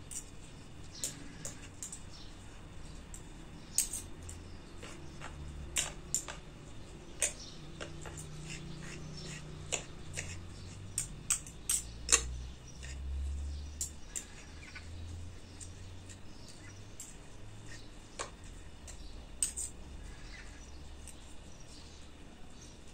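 Metal forks clicking and scraping against a plate as cooked chicken is pulled apart into shreds, in irregular sharp clinks.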